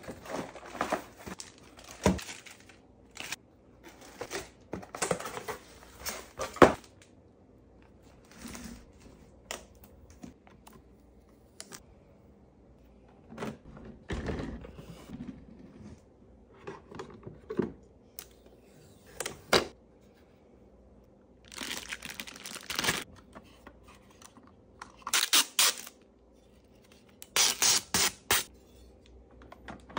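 Unboxing sounds of a new espresso machine: cardboard packing and plastic wrap rustling and crinkling in irregular bursts, with a few sharp knocks of parts on the table. Near the end, protective plastic film is torn and peeled off the drip tray cover in several long, louder rasps.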